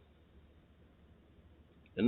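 Near silence: faint steady room hiss and low hum, with a man's voice starting right at the end.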